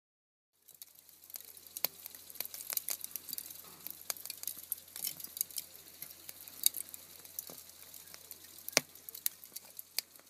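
Crackling sound effect: irregular sharp pops and snaps over a faint high hiss and a low steady hum, starting about a second in.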